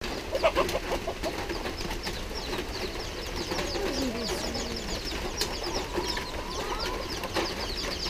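Free-range chickens: chicks peeping in many quick high chirps, with a few lower calls from the adult hens and roosters among them.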